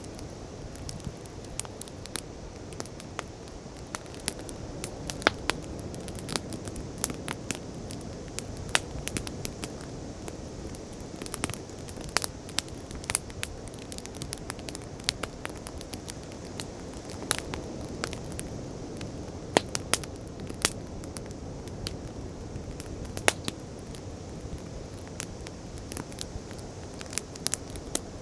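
Campfire of burning wood crackling, with frequent sharp irregular pops over a steady low rushing noise.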